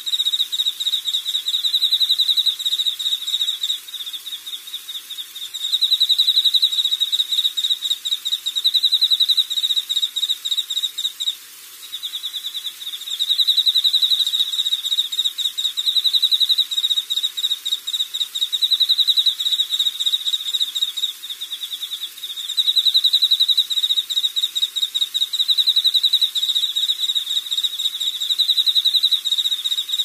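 An insect trilling: a high-pitched, rapidly pulsed call repeated in long phrases of several seconds with brief breaks, alternately louder and softer.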